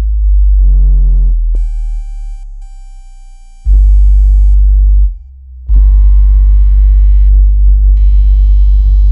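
Synthesized water-ejection tone track: very deep bass tones layered with steady mid and high-pitched tones, made to vibrate earbud speakers and push water out. The bass weakens under a thin steady high tone, then comes back loud about four seconds in. It drops away briefly about five seconds in and returns with many stacked tones.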